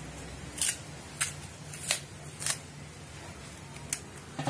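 Knife slicing strips of peel off a raw green banana, about five short sharp cuts a little over half a second apart, over a low steady hum.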